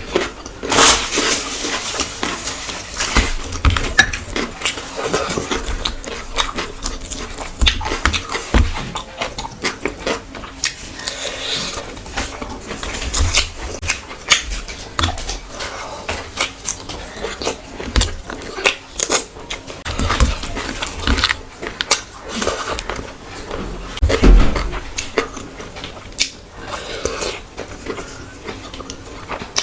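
A person eating close to the microphone: irregular chewing with many sharp mouth clicks and smacks, and one louder knock about three-quarters of the way in.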